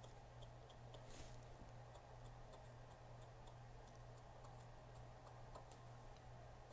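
Near silence: a low steady hum, with faint irregular light ticks as a cotton swab brushes the conductive side of a rubber push-button keypad.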